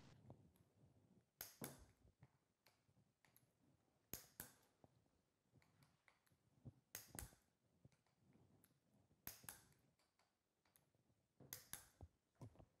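Torque wrench set to 12 Nm clicking faintly as the screws on a two-stroke kart engine's intake are tightened to torque. The clicks come in short groups of two or three, about every two to three seconds, five groups in all.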